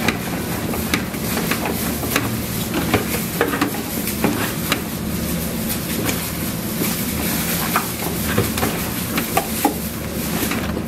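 Gloved hands tossing and squeezing chili-seasoned napa cabbage in a large metal basin while mixing kimchi, giving many short, irregular slaps and clicks over a steady low hum.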